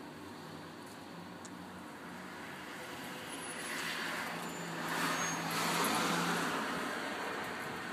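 A motor vehicle passing on the street: a steady low engine hum under tyre and road noise that grows to a peak about five to six seconds in, then fades.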